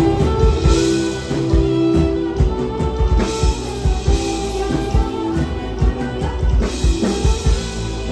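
Live rock band playing: a drum kit keeps a steady beat under electric guitar and held notes.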